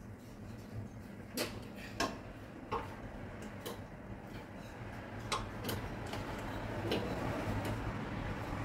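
Sharp metallic clicks and clinks, about seven of them at irregular intervals, from steel tools and parts being handled on the machine's toothed slewing gear, over a low steady hum.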